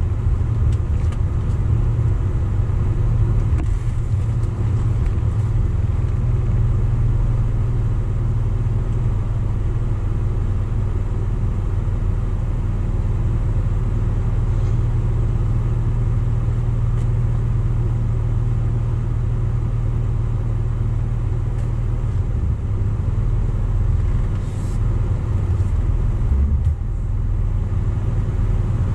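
A car idling and creeping forward at low speed, heard as a steady low rumble, with a brief dip near the end.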